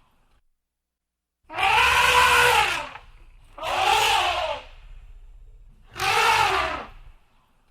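Elephant trumpeting: three loud blasts of about a second each, each rising then falling in pitch, with short gaps between them.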